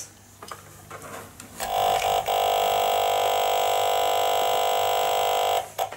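A steady electronic buzzing tone, held for about four seconds with a brief dip just after it starts, then cutting off.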